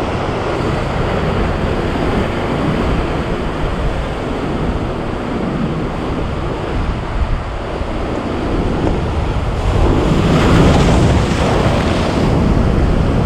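Sea surf washing against the rocks, with wind buffeting the microphone. About ten seconds in a wave breaks and surges louder for a couple of seconds, then eases.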